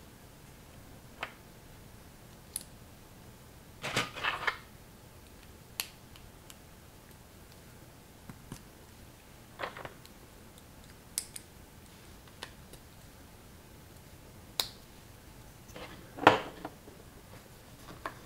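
Knockoff LEGO-style plastic building bricks being handled and pressed together: scattered single clicks a few seconds apart, with a short clattering cluster about four seconds in and a louder one near the end.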